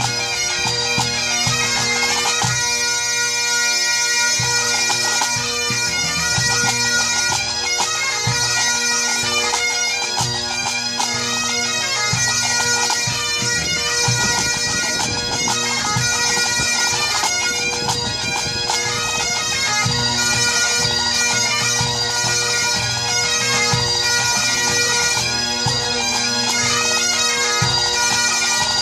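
Pipe band playing a medley: Great Highland bagpipes sounding a melody over their steady drones, with snare, tenor and bass drums beating time.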